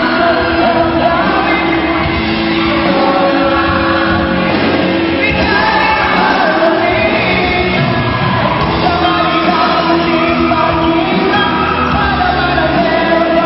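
Live band playing a song with a lead singer, electric guitars, bass, drums and keyboard, loud and steady.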